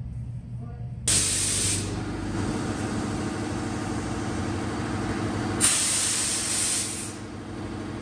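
Car-wash pressure-washer wand spraying water: a loud hiss of spray starts suddenly about a second in and carries on steadily over the hum of the pump, with a second loud burst of spray past the middle that eases off near the end.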